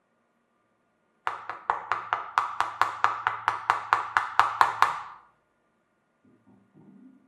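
A quick, even run of about seventeen sharp, ringing knocks, a little over four a second, lasting nearly four seconds, followed by a faint low sound near the end.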